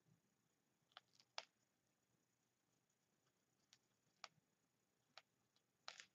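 Near silence: quiet room tone broken by a handful of short, faint clicks and taps, the loudest about one and a half seconds in and a double click near the end.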